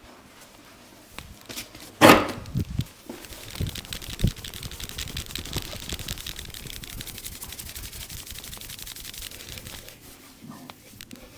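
Hands working a person's head during a vigorous head massage. There is a loud sharp hit about two seconds in and a few softer thumps. Then comes a fast, even patter of hand strokes on the head and hair for about six seconds, fading near the end.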